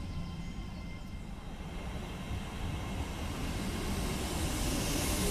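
TransPennine Express Class 802 train approaching along the platform, its rolling noise growing steadily louder as it draws near and passes alongside.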